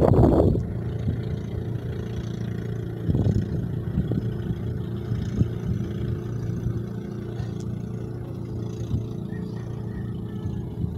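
Cargo ship's diesel engine running steadily underway, a low drone with a steady hum. A louder sound dies away in the first half second.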